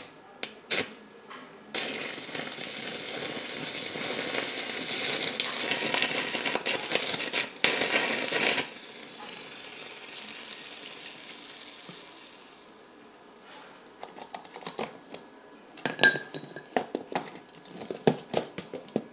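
Handheld butane cartridge blowtorch burning with a steady hiss that starts suddenly about two seconds in, drops to a softer hiss about eight seconds in and dies away a few seconds later. A few sharp clicks come before it, and a scatter of clicks and crackles comes near the end.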